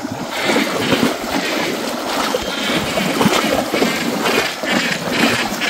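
Livestock wading through deep floodwater, with water sloshing and splashing in quick, uneven pulses about twice a second.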